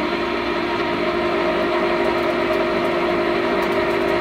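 LeBlond engine lathe running under power, set up for thread cutting, its spindle and gearing making a steady hum.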